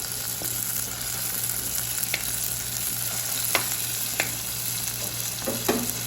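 Shallots, green chillies, ginger and fresh curry leaves sizzling in hot coconut oil in a clay pot, with a few light clicks of a spoon stirring them.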